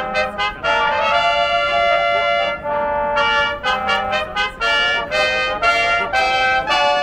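Live brass fanfare of trumpets and trombones playing chords, short repeated notes alternating with held ones. It is a horse-race fanfare, the call that brings the runners to the start.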